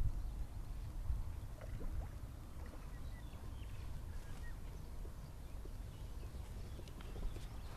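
Quiet lakeside ambience: a steady low rumble with a few faint, short bird chirps.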